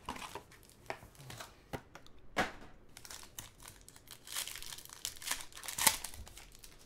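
Foil wrapper of a trading-card pack crinkling and tearing as it is opened by hand, with irregular crackles; the sharpest crackle comes near the end.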